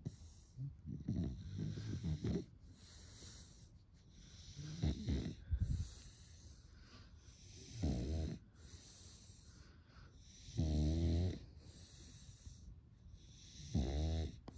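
French bulldog snoring, a low rasping snore on each breath, about every three seconds.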